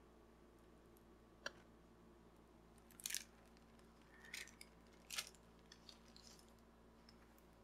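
Faint crinkling of the clear plastic film covering a diamond painting canvas as it is handled, in a few short crackles about three, four and five seconds in, over a low steady hum.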